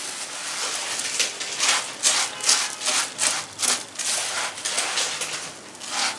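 Wooden spatula stirring puffed rice into jaggery syrup in a non-stick pan: repeated scraping, rubbing strokes, irregular, about two a second.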